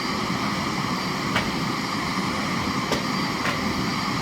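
Miele Blizzard CX1 bagless cylinder vacuum cleaner running steadily, with three short sharp clicks partway through.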